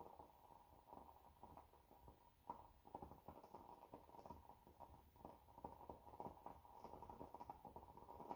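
Near silence: room tone with faint, irregular small clicks.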